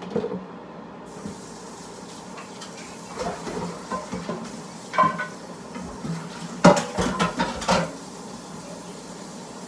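Kitchen dishes and pans being handled: scattered knocks and clinks, with the loudest cluster about seven seconds in, over a steady hiss that starts about a second in.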